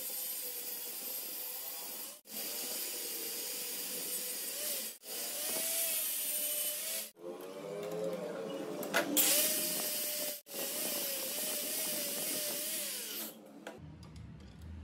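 Angle grinder with a cutting disc cutting a metal bar held in a bench vise: a steady motor whine that wavers in pitch under load over the hiss of grinding, broken off abruptly several times. Near the end it gives way to a low hum.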